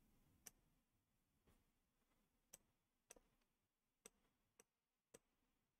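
Near silence broken by about seven faint, irregularly spaced clicks of a computer mouse as nodes and settings are picked in the software.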